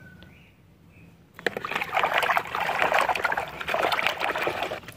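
Water sloshing and splashing in a bucket as a hand scrubs a muddy plastic dinosaur toy under the water, starting about a second and a half in and stopping just before the end.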